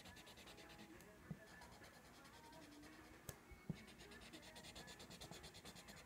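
Felt-tip marker scribbling back and forth on paper, faint quick even strokes of colouring in, with short pauses about a second in and just after three seconds and a few light taps.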